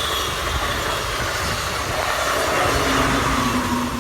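Amtrak Keystone push-pull passenger train, cab car leading and ACS-64 electric locomotive pushing, passing at speed with wheels clattering on the rails. Whines in the rush fall slowly in pitch as it goes by, and a low steady hum comes in near the end.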